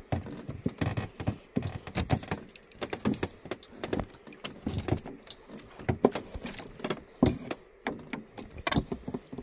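Long knife tapping and scraping on a wooden plank while cutting: a quick, irregular run of sharp knocks and taps, several a second.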